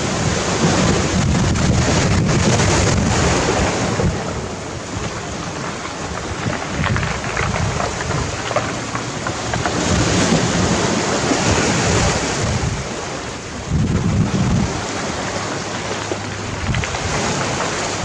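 Sea waves breaking and washing over a pebble beach, a continuous rush that swells and eases in surges, with a sudden new surge about fourteen seconds in.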